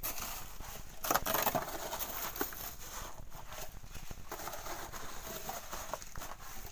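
Sand and gravel being worked by hand: a hoe scraping into the volcanic sand and a wire sieve shaken over a wheelbarrow, with stones rattling on the mesh. The scrapes and rattles come irregularly, the loudest about a second in.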